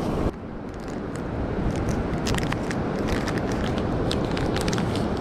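Steady wind and surf noise on the microphone, with a run of small sharp crackles from about two seconds in as a plastic packet of fishing hooks is handled.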